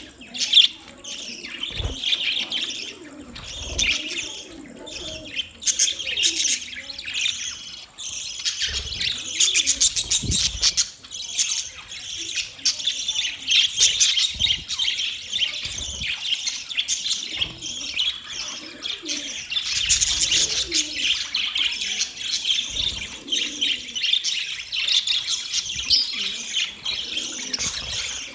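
Budgerigars chirping and chattering, a continuous busy warble of many short tweets and trills. A few low thumps sound here and there.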